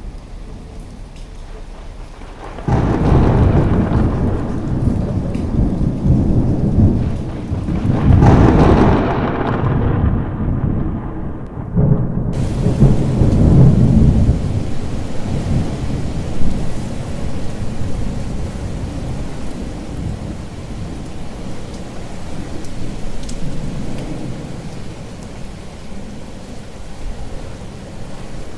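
Thunder starts suddenly a few seconds in and rumbles in waves, loudest again around eight and thirteen seconds, then dies away. Steady rain hisses underneath throughout.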